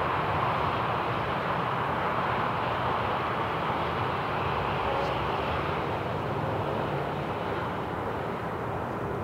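Steady jet aircraft engine noise from across an airfield, a continuous roar that eases slightly toward the end.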